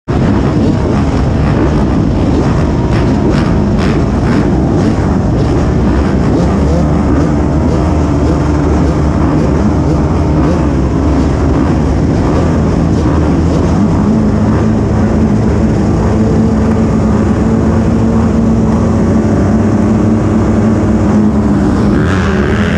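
Motocross dirt bike engines running steadily and loudly, with a rising rev near the end.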